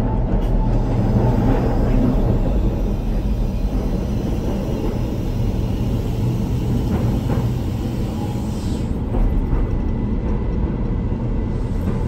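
Keihan 800 series train of the Keishin Line running, heard from on board as a steady low rumble, with a brief high squeal about two-thirds of the way in.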